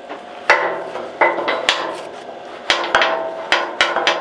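Hammer striking steel: about nine sharp, irregularly spaced metallic blows, each one ringing briefly.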